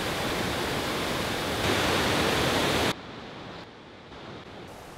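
Water rushing steadily over a low river weir, cutting off abruptly about three seconds in to a much quieter outdoor hush.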